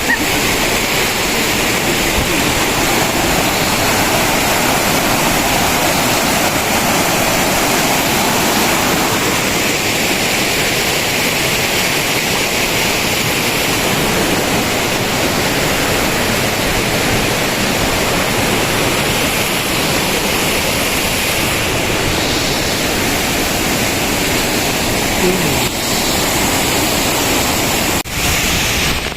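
Waterfall pouring, a loud steady rush of water with a brief dip about a second before the end.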